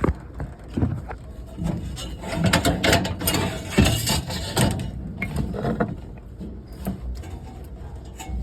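Irregular run of mechanical clicks, knocks and rattles, busiest and loudest around the middle.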